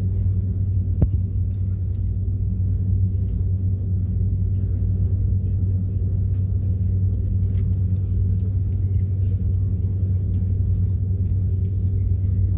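Steady low drone inside an airliner cabin as the plane taxis, with the jet engines at idle. One short click about a second in.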